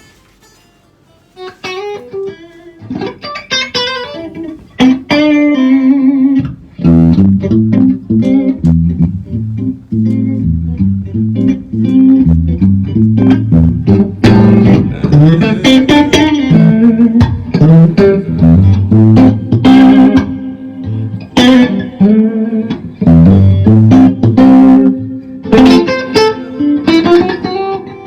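Electric guitar played through an Orange guitar amplifier: a few separate picked notes at first, then from about six seconds in loud, heavy riffing on low chords.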